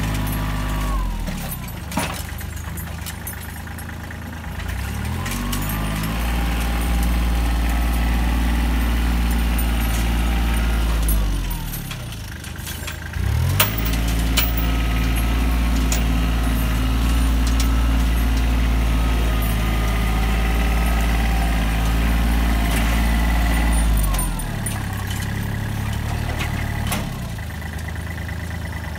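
Kubota L3400 compact tractor's diesel engine working its front loader, revving up and down with the load. It drops about a second in, rises again around five seconds in and runs high, dips briefly at about twelve seconds, runs high again, then settles to a lower speed near the end. A couple of sharp knocks come through, about two and thirteen seconds in.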